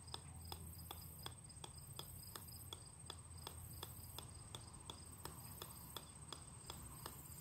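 Golf ball bouncing on the steel head of an 8-pound sledgehammer, a light sharp tick about three times a second in a steady, even rhythm.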